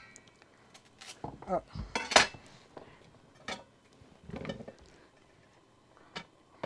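Scattered knocks and clinks of a kitchen knife against a ceramic plate as the ends of green plantains are cut off, the loudest about two seconds in.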